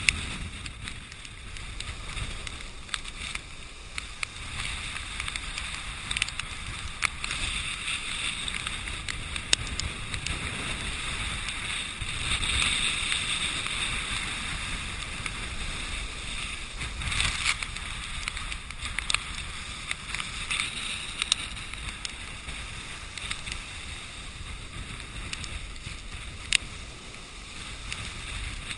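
Heavy storm surf churning and breaking against a rocky sea wall, a steady rushing wash with low rumble, while strong wind buffets the camera microphone. The wash swells louder about halfway through, with a few sharp ticks scattered through it.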